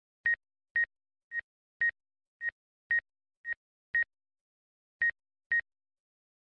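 A short electronic beep at one high, steady pitch, repeated about twice a second: ten beeps with one longer pause partway through, and dead silence between them.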